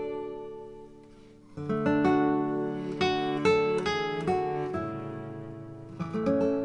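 Background music on acoustic guitar, with plucked notes and strummed chords. It fades to a lull in the first second and a half, then comes back in with new chords.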